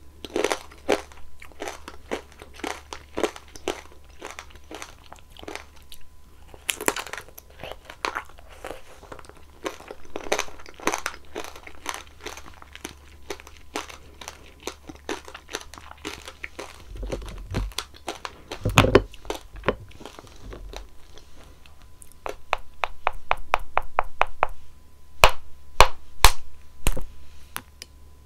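Close-up eating sounds of strawberry tanghulu: the hard candy shell crunching and cracking between the teeth as it is chewed. Late on comes a quick run of crisp crackles, followed by a few sharp snaps.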